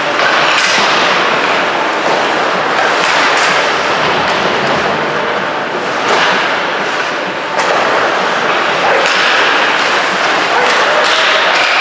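Ice hockey play: skate blades scraping and carving the ice in a steady hiss, with a few sharp clacks of sticks and puck.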